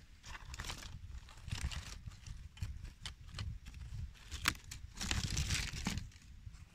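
Dry leaf litter, twigs and stones rustling and crackling as they are stepped on and handled, with irregular clicks and a sharp snap about four and a half seconds in; a longer, louder rustle follows about five seconds in.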